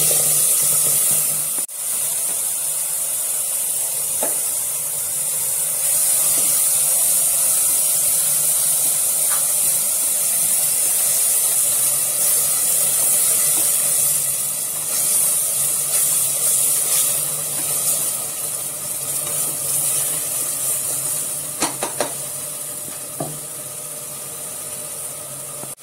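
Ground green masala paste sizzling loudly as it fries in hot oil, a steady high hiss that starts suddenly as the paste goes in and eases somewhat near the end. A few light knocks near the end.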